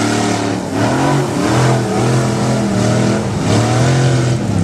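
Pickup truck engine revving hard while churning through deep mud, its pitch climbing and falling several times, with short dips about a second in and near the end.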